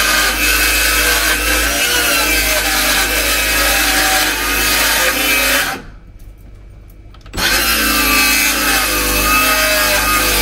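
Circular saw running and cutting slowly through a wooden panel, steady throughout except for a break of about a second and a half roughly six seconds in, after which it starts again.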